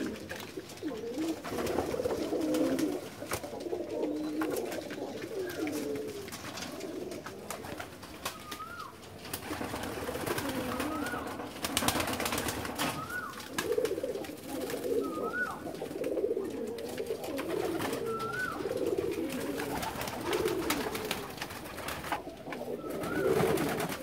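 A flock of domestic fancy pigeons cooing, several birds overlapping in low warbling calls. Short high chirps rise and fall every few seconds, and a brief flurry of clicks comes about halfway through.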